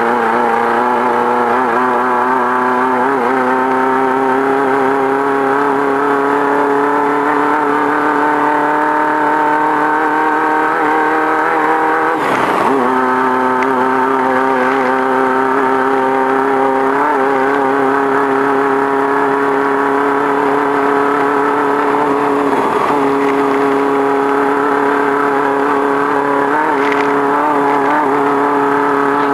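A Beetle-based off-road race car's engine running hard at a high, nearly steady pitch, heard from inside the car. About twelve seconds in there is a brief dip, and later a smaller one.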